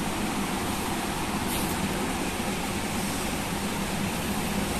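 Steady room noise: an even hiss with a faint low hum, with one faint tick about one and a half seconds in.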